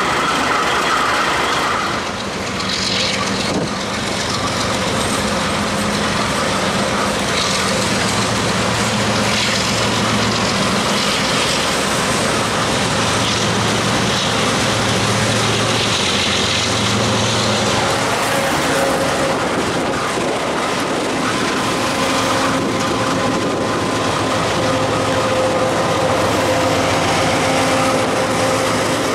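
Diesel-electric freight locomotives running under power as they pass close by, a steady engine hum over rolling noise, with a faint steady whine in the later part.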